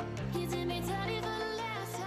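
Background music: a melodic tune with several moving lines over held bass notes.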